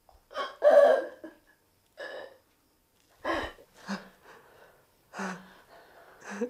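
A young woman crying, in a string of short gasping sobs with quiet pauses between them, the loudest about a second in.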